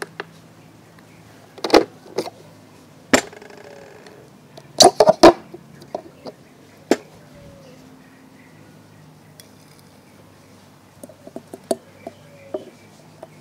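Glassware being handled: separate sharp knocks and clinks of a glass and blender jar being set down and moved, loudest as a quick cluster about five seconds in, with a few light taps near the end.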